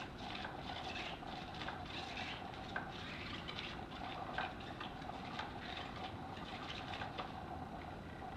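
Battery-powered motorized cat toy running: a steady motor hum, with irregular rustling of its nylon cover as the wand sweeps underneath and the cat paws at it.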